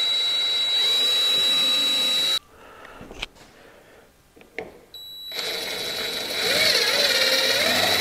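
Cordless drill running, boring a pilot hole into a UTV's rear body panel. It stops abruptly about two and a half seconds in, with a couple of small clicks in the pause. It starts again about five seconds in, its pitch wavering as the trigger and the load change.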